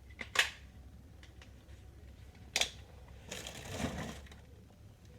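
Handling noises: a sharp knock about half a second in, another about two seconds later, then a second or so of scraping and rustling.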